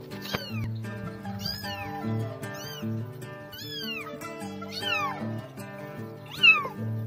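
A kitten meowing over and over: about six high calls, each rising briefly and then falling, the loudest near the end. Background music with held notes plays under them.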